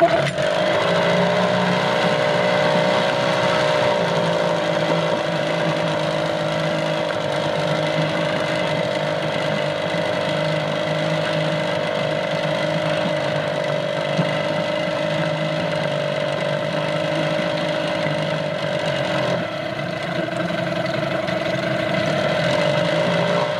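Small outboard motor running on its own at a raised idle, its idle speed screw turned up to keep it from stalling, with a slightly uneven note. Near the end the pitch rises a little as the idle mixture screw is turned and the idle picks up, a sign of a better mixture.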